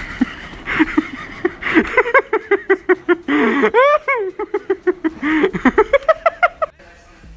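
A woman's startled shrieks: quick high-pitched yelps, about four a second, with a couple of longer cries in the middle that rise and fall in pitch, stopping shortly before the end.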